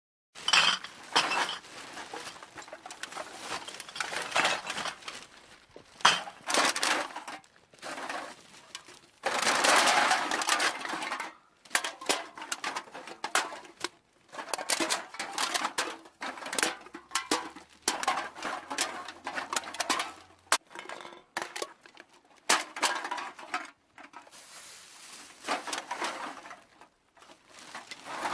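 Aluminium cans being handled and knocked together: a long run of irregular light metallic clinks and clatters, with a longer, denser rattle about ten seconds in.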